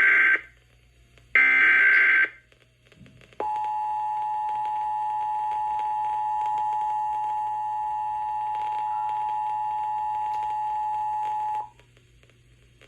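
Emergency Alert System test broadcast over FM radio. Two short raspy bursts of SAME header data tones play in the first two seconds. After a second's pause, the two-tone EAS attention signal sounds steadily for about eight seconds and cuts off abruptly.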